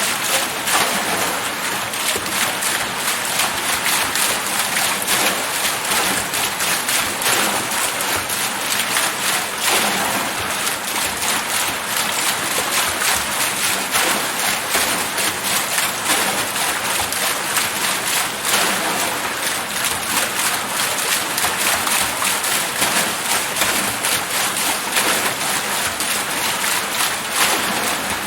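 A water wheel turning, with a steady splashing rush of water that stays even throughout.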